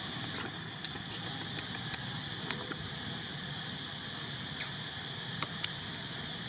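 Steady high insect drone, with a few scattered light clicks and ticks, about half a dozen, over it.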